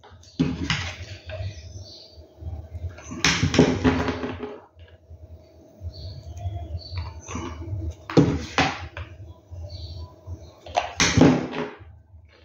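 Crushed stone pieces clicking and scraping against each other and the cardboard tube as they are picked up and pressed into place, with four louder handling noises a few seconds apart and a faint steady hum underneath.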